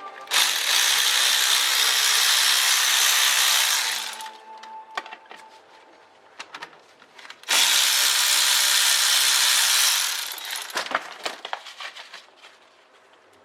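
A power tool run in two bursts of about three and a half seconds and three seconds, with scattered metallic clicks and knocks between and after them, while a Suzuki LJ-series front swivel hub is taken apart.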